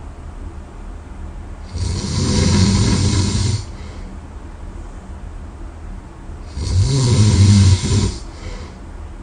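A person snoring loudly in their sleep: two long snores, each one to two seconds long, about four seconds apart, with quieter breathing between.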